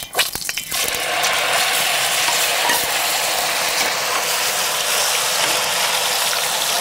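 A few metal clinks of a skimmer and ladle against a cast-iron skillet, then pork pieces sizzling and crackling steadily in very hot oil from about a second in, being quickly seared.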